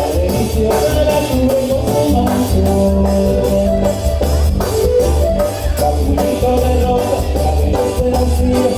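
Latin dance music played loud, with a heavy pulsing bass, percussion and melodic instrument lines.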